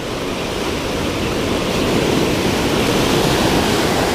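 Ocean surf rushing in: a broken wave's whitewater washing over the shallows, swelling over the first couple of seconds and then holding as a steady loud rush.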